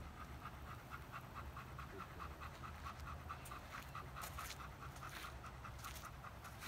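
A Doberman panting quickly and evenly, about four to five breaths a second.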